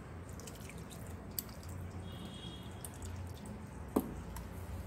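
Wet squishing and dripping as soaked tamarind pulp is squeezed by hand and its juice poured from one small steel bowl into another, with a sharp knock about four seconds in.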